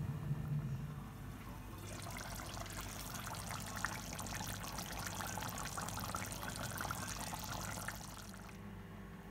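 Chicken curry in coconut milk boiling hard in an uncovered pot on high flame: a dense crackle of bursting bubbles that starts about two seconds in and stops shortly before the end, over a steady low hum.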